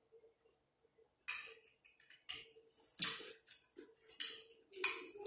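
Eating sounds: a metal fork and spoon clinking and scraping in a glass bowl of beans, mixed with chewing. There are about half a dozen short sounds, starting about a second in.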